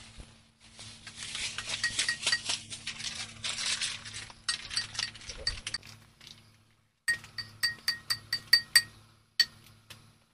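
Clinking of small hard objects knocking against a hard container. A dense clatter lasts several seconds, then about seven seconds in comes a quick run of separate clinks, each ringing briefly.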